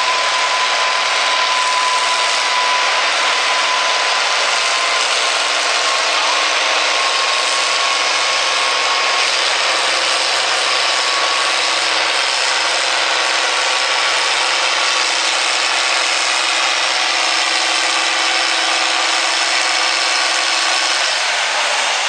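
Turbocharged International Harvester farm tractor engine working hard under full load as it pulls the weight-transfer sled, a loud, steady, rattly drone with a thin whistle on top. It eases off near the end as the pull stops.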